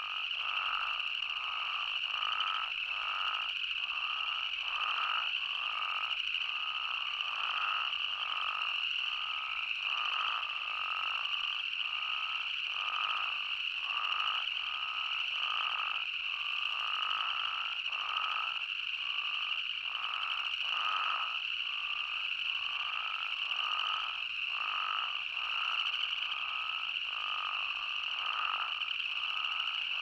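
A chorus of spadefoot toads calling: short calls repeat one or two a second, overlapping, over a steady high-pitched drone.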